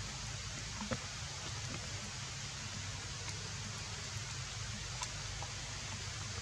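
Steady outdoor background ambience: an even hiss over a low hum, with faint ticks about one second and five seconds in.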